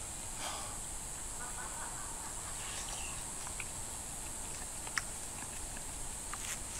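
Steady high-pitched trilling of night insects, with small clicks of a spoon against a plate as someone eats, one sharper clink about five seconds in.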